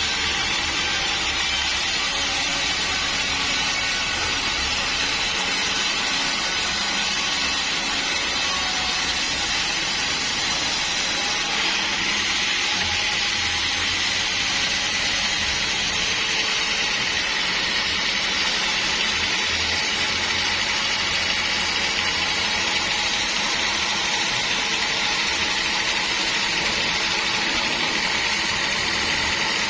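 Sawmill saw running steadily as it cuts through a large log, a continuous loud machine noise whose tone shifts slightly about eleven seconds in.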